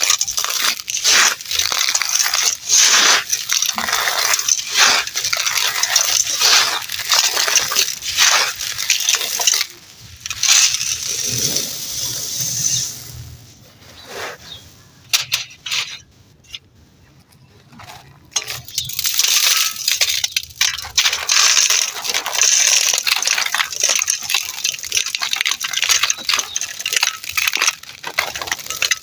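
Dry, gritty material crumbling and crunching in a dense run of crackles. For several seconds midway it thins to a few scattered crackles, then picks up again.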